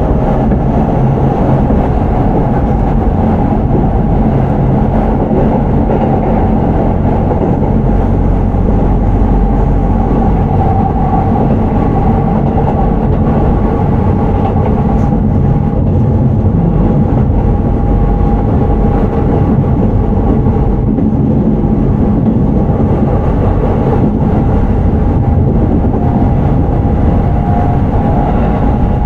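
Shin-Keisei 8900 series electric commuter train, renewed with Mitsubishi IGBT VVVF control, heard from inside the car while running between stations: a steady, loud rumble of wheels on rail with a faint steady high tone above it.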